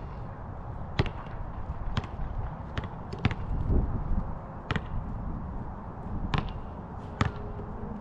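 Basketball bouncing on an outdoor asphalt court: sharp single bounces about a second apart, irregular, seven in all, over a steady low rumble of wind on the microphone.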